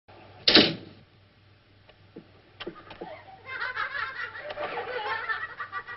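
A loud, sudden sound about half a second in, then, from a little past halfway, laughter or giggling in a high voice.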